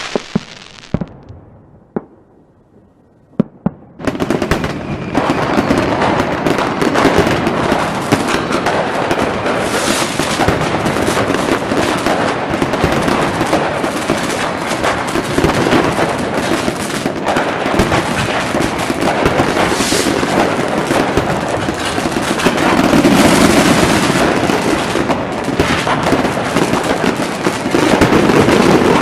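Fireworks: a fading whoosh and a few single sharp bangs, then from about four seconds in a loud, dense crackle of rapid pops that runs on without a break.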